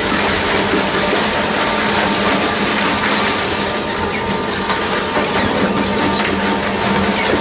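Weima ZMK40 four-shaft shredder running, its cutter shafts turning and pulling in a car tyre: a loud, steady machine noise with a constant hum and many small crackling clicks. A heavier hiss of tearing comes in about four seconds in.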